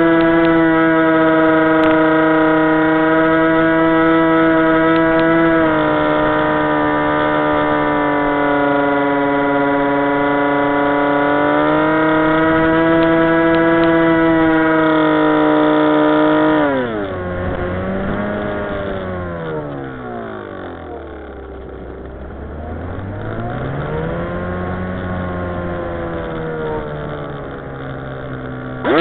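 Electric motor and propeller of a HobbyZone Aerobird 3 radio-controlled plane heard from on board in flight: a steady, high whine that dips slightly about six seconds in and comes back up around twelve seconds. About seventeen seconds in the throttle is cut, and the pitch then sags and swells as the motor is throttled down and up on the descent.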